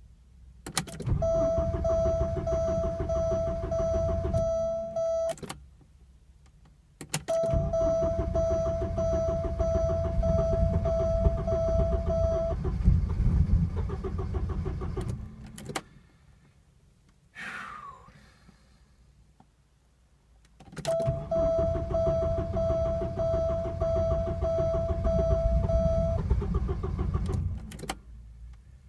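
1986 Porsche 944 NA being cranked on the starter in three long attempts of several seconds each, each ending with a click, as it struggles to start. A short falling squeal sounds between the second and third attempts.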